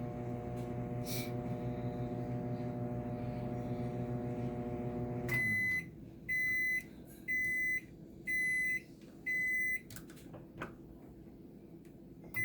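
Microwave oven running with a steady hum, which winds down about five seconds in, followed by the end-of-cycle signal: five high beeps about a second apart.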